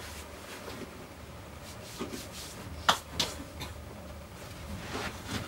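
Rustling and handling noises of a person moving about and handling gear, with two sharp clicks close together about three seconds in.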